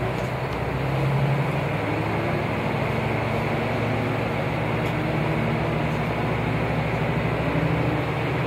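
Running sound inside a JR Hokkaido KiHa 201 diesel railcar under way: the diesel engine works steadily under power, with a faint note that climbs slowly in pitch as the train gathers speed.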